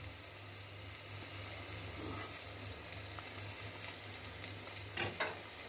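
Hot oil sizzling steadily around stuffed bitter gourds deep-frying in a kadai, with scattered small crackling pops.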